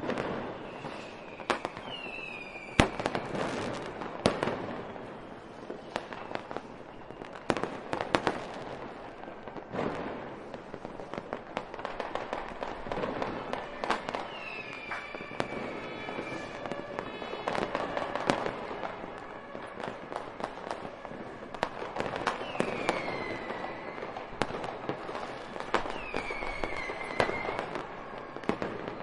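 Fireworks going off without a break: sharp bangs over steady crackling, with several whistling rockets whose whistle falls in pitch.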